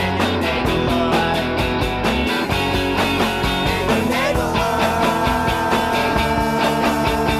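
Rock music with a steady beat; about halfway through, a long held note comes in over it.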